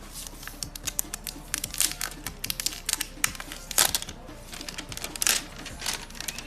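Plastic packaging being handled and peeled off a new phone: irregular sharp crinkles and clicks, several louder snaps near the middle.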